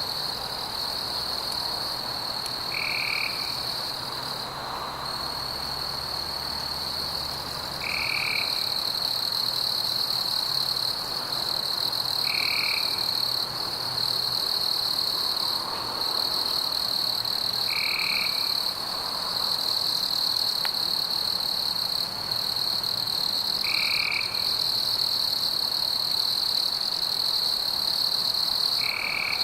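Night chorus of frogs and insects: a steady high-pitched trilling that pulses and never stops, with a short lower call repeating about every five seconds.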